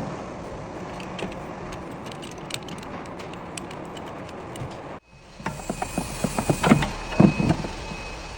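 Scattered metallic clicks and knocks of mechanical work on a car. They are sparse over a steady background noise at first; after a sudden cut about five seconds in they come thick and fast over a faint steady high whine.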